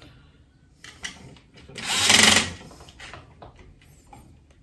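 Battery-powered screwdriver whirring for about a second, tightening a switch terminal screw to clamp the wire, with light clicks and handling noises around it.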